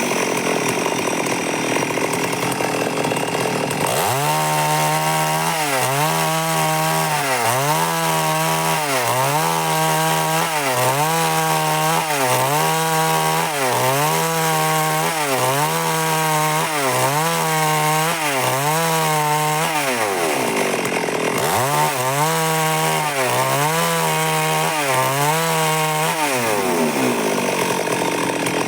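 Stihl MS 382 two-stroke chainsaw at high revs cutting wood lengthwise. The engine note dips and recovers about once a second as the bar is worked through the cut. It drops briefly about 20 seconds in and falls away near the end.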